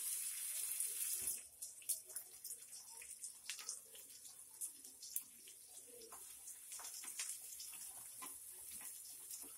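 Chopped onions sizzling as they hit hot oil in a pan, loudest for about the first second, then a steadier, softer sizzle. Scattered clicks and scrapes of a spatula stirring the onions.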